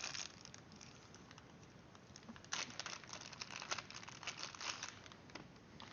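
Faint crinkling and rustling of packaging being handled, with a cluster of small crackles and clicks between about two and a half and five seconds in.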